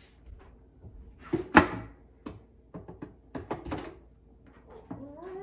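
Plastic lid of a new kitchen garbage can being worked by hand, knocking and clacking several times, the loudest clack about one and a half seconds in. The lid is broken and won't close.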